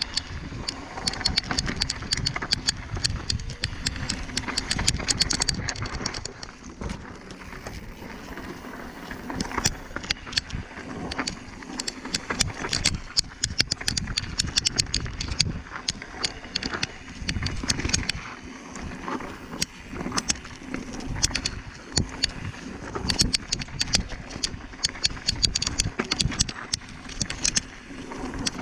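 A bike ridden over rough, rocky ground: dense, irregular clattering and rattling, with wind rumbling on the microphone.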